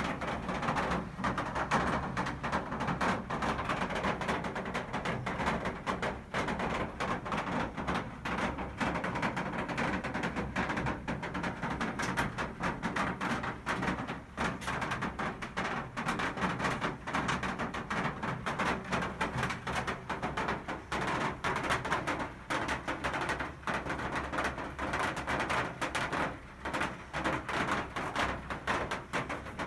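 Steady rain falling, many drops tapping irregularly over a continuous hiss of falling water.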